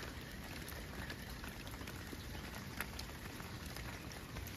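Water drops pattering steadily onto wet rock: an even hiss with many small scattered ticks.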